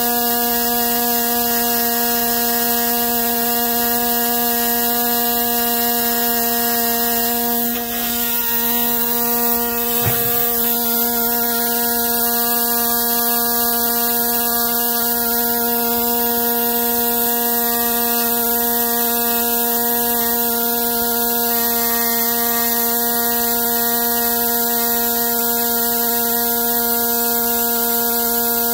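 Handheld vibrating engraving tool buzzing steadily as its tip chips away rock over a fossil leaf. The buzz dips briefly about eight seconds in, and there is a short knock about two seconds later.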